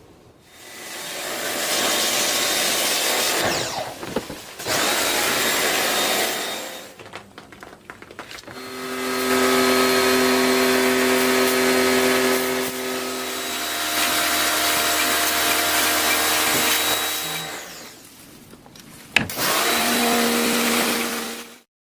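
A motor-driven cleaning machine running in four bursts of a few seconds each: a loud hiss, with a steady hum under the longest burst and the last one. It cuts off abruptly near the end.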